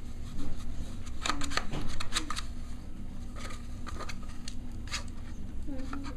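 Cavalier King Charles Spaniel puppies playing and chewing on cardboard tubes: scratchy rustling and scattered clicks, with a few short low grunts.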